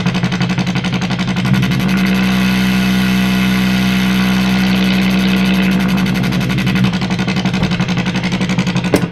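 ARP 2500 modular analog synthesizer sounding a loud, buzzy, rapidly pulsing drone at a steady pitch. Its tone shifts about a second and a half in and again near seven seconds, and it cuts off suddenly at the end.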